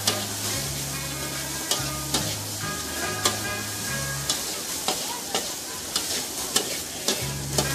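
Noodles and bean sprouts sizzling in a hot steel wok while a metal ladle stirs and scrapes through them. Irregular sharp clacks of the ladle striking the wok sound over the steady hiss of the frying.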